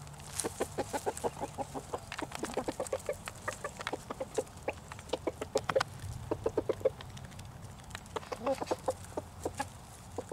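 Chickens clucking as they feed, in quick runs of short clucks.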